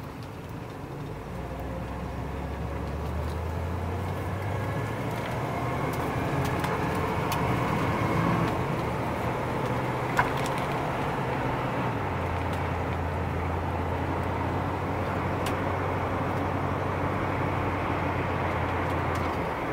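1981 Chevrolet Camaro Z28's V8 engine running as the car is driven, heard from inside the cabin with road noise. The engine note climbs and grows louder over the first several seconds, then steps down to a lower pitch about twelve seconds in; a single sharp click sounds about ten seconds in.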